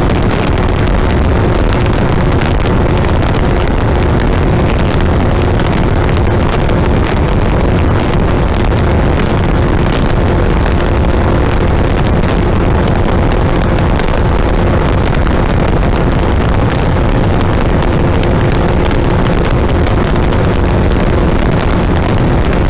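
Wind rushing over the microphone of a moving motorcycle, with the steady drone of a Honda CBR650F's inline-four engine under it at an even speed.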